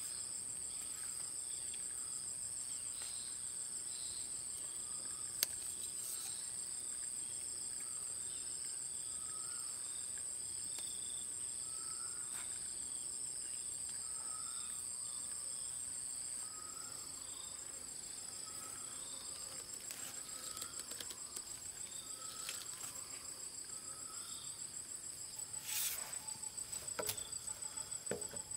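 Insects calling: a steady high-pitched buzz that about halfway through turns into a rapid pulsing trill, with a softer chirp repeating about once a second. Near the end, a few light knocks as PVC pipe fittings are handled.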